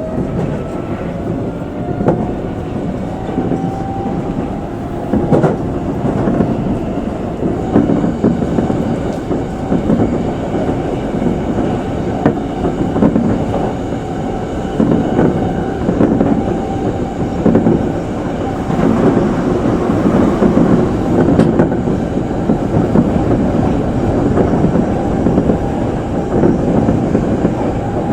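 Electric commuter train running on the rails, heard from the front of the train. Its motor whine rises in pitch over the first few seconds as it picks up speed, then it settles into steady running noise with occasional wheel clicks.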